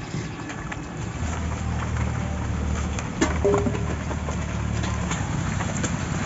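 An engine running steadily, a low hum that sets in about a second in and eases near the end, with scattered light clicks and knocks of handling.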